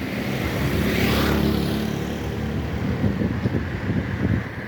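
Yamaha YBR 125's single-cylinder four-stroke engine running through an Akrapovic exhaust with the dB killer removed, low and steady at first, then an uneven run of sharp pops in the second half.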